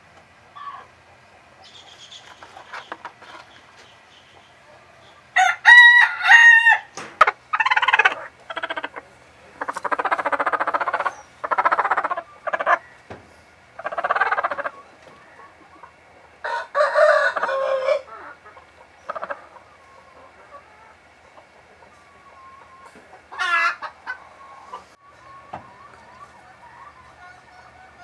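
Chickens calling: a string of loud calls, some clear and pitched and some harsh, with a short pause between each, then one more call a few seconds later.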